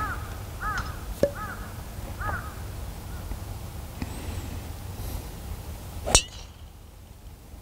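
A bird calls four times in the first two and a half seconds. About six seconds in comes one sharp, loud crack: a driver striking a teed golf ball.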